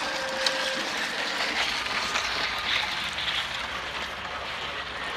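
Pieces of laminate flooring scraping and hissing as children slide on them down wet asphalt, a steady rough rasp with a few small clicks.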